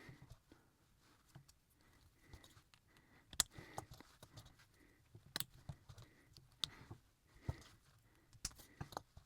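Small plastic model-kit parts being handled and pressed together: faint, irregular clicks and taps, with a handful of sharper clicks spread through.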